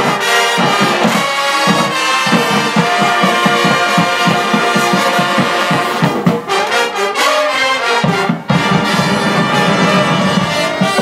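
Marching band playing a loud brass passage, with trombones and trumpets over percussion, broken by a momentary gap about eight and a half seconds in.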